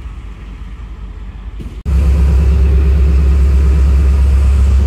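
Diesel locomotive engine running with a low rumble. After a sudden cut about two seconds in, a much louder, steady low drone of an idling diesel engine takes over.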